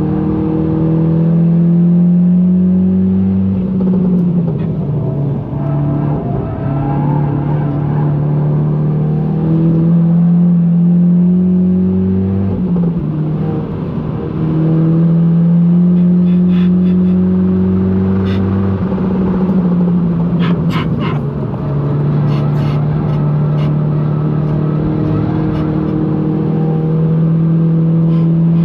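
GTI engine under hard acceleration. Its pitch climbs steadily through each gear and drops sharply at each upshift, about four times. A few short sharp clicks come around the middle.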